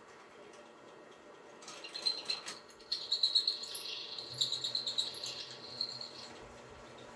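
Benchtop drill press running, its bit cutting through the steel mounting foot of a winch to enlarge a bolt hole. From about two seconds in, the bit bites into the metal with a high, uneven squeal and scattered scraping clicks that ease off near the end.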